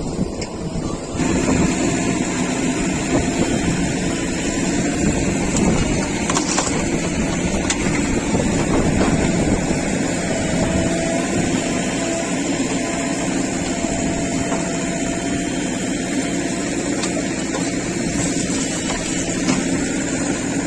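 Backhoe loader's diesel engine running steadily while working, with a faint whine for several seconds in the middle.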